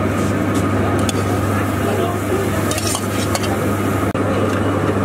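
A metal ladle stirring boiled chickpeas into gravy on a large flat iron griddle: the chickpeas are poured from a steel bowl, and the ladle clinks and scrapes against the griddle a few times, most often past the middle. Under it there is a steady low hum.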